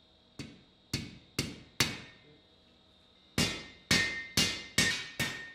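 Blacksmith's hand hammer striking a red-hot steel bar on the anvil: four blows, a pause, then about six more in quicker succession, each with a short metallic ring.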